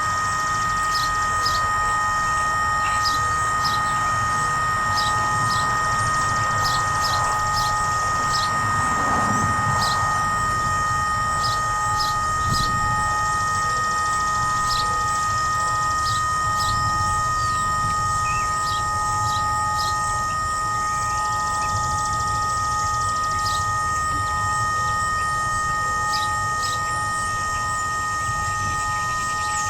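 Whelen WPS-3016 electronic warning siren buzzing steadily on a few fixed tones instead of sounding its signal, a sign of malfunction that the owner guesses comes from the siren failing to rotate to its position.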